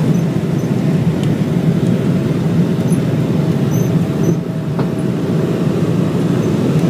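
Steady jet-engine and airflow noise inside the cabin of a Boeing 777-300 climbing out after takeoff: an even, loud rumble with a faint steady hum above it.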